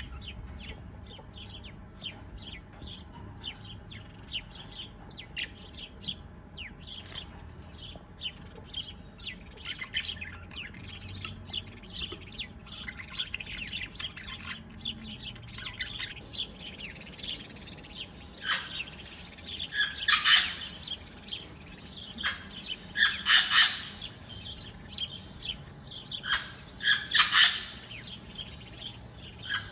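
Small birds chirping: many quick, high chirps, then from about two-thirds of the way in, louder clusters of chirping every few seconds over a faint steady high tone.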